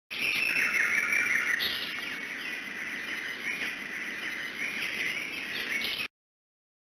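Birdsong ringtone from an Alcatel OT 835 phone: a recording of many birds chirping over a steady hiss. It starts and cuts off abruptly after about six seconds.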